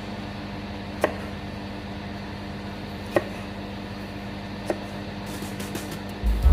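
Steady low kitchen hum with three sharp clicks about two seconds apart, then a run of faint ticks, and a low thump just before the end.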